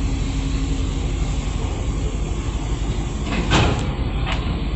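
A ship's engine rumbling steadily at close range, with a brief louder rush about three and a half seconds in.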